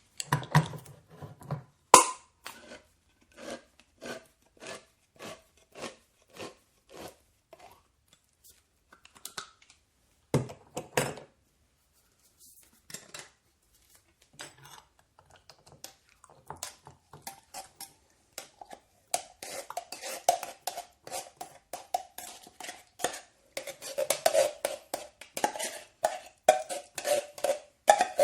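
Handheld manual can opener cranked around a metal can, its wheel clicking about twice a second. After a pause with a few knocks, the clicks come faster, with a ringing metallic tone as the blade cuts the lid.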